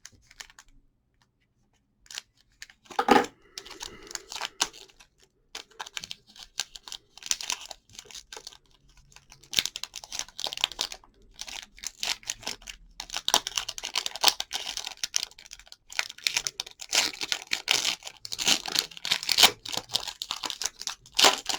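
A foil trading-card pack being torn open and its wrapper crinkled, with a single knock about three seconds in. Most of the stretch is dense, crackly rustling.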